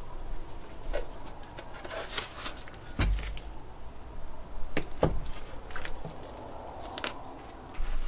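A knife slicing through food held in the hand, with scattered small clicks and two louder knocks about three and five seconds in.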